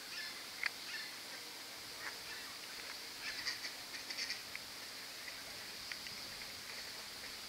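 Canada goose goslings peeping: short, high-pitched calls, scattered at first and then in quick clusters in the middle, over a faint steady hiss.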